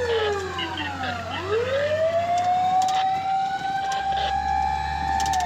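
Fire truck siren winding down to a low pitch about a second in, then rising back up and holding a steady wail, over the truck's engine drone.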